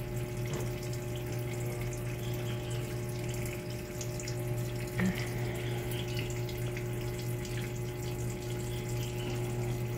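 Mabe top-load washing machine filling with water: a steady rush of water pouring into the drum over a low hum, with a single click about five seconds in.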